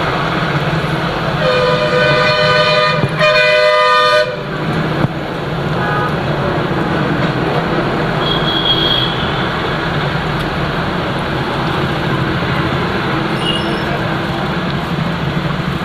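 Steady traffic noise with a vehicle horn blown twice: a long two-tone blast about a second and a half in, then a shorter one just after three seconds.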